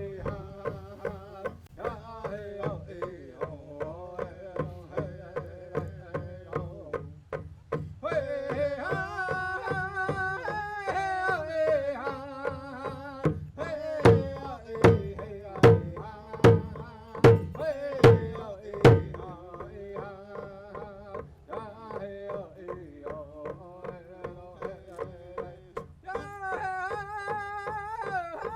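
A man sings a Native American hand-drum song, his voice rising into a higher line partway through, over a steady beat on a hand drum of about two strokes a second. Midway there are seven much louder drum strikes.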